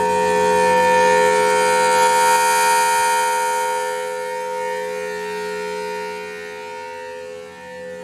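Federal Signal Thunderbolt 1000T tornado siren sounding its steady alert tone. It swells loudest in the first few seconds, then fades as the rotating horn turns away.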